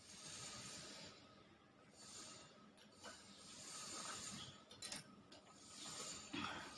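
Faint breathing close to the microphone: a soft hiss that swells and fades about every two seconds, with a few small clicks between breaths.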